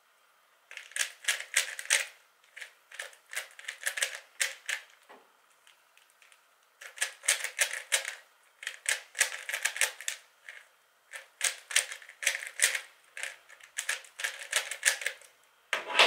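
A 3x3 Rubik's cube being turned quickly by hand: fast runs of plastic clicks as the layers snap round, broken by short pauses, with a longer pause about five seconds in.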